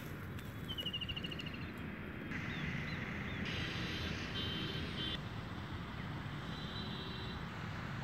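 Open-air ambience over a field: a steady low rumble with scattered bird chirps and a short, quick, falling bird trill about a second in.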